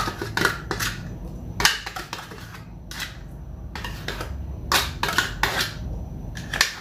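A spoon clinking and scraping against dishes in short, irregular strokes as caramel pudding is spooned onto whipped cream in a glass bowl.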